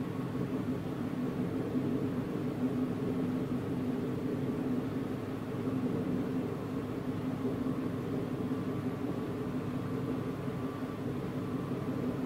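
Steady running noise of a passenger train at speed, heard from inside the carriage: an even low rumble with a faint steady whine above it.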